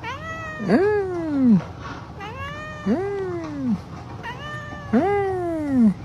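A cat meowing repeatedly: three long meows about two seconds apart, each rising briefly and then falling in pitch, each led in by a shorter, fainter call.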